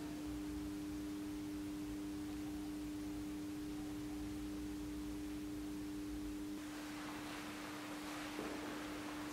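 A steady electronic drone: one low pure tone held throughout, with a fainter higher tone alongside it. The higher tone drops out about two-thirds of the way in, and a soft hiss rises in its place.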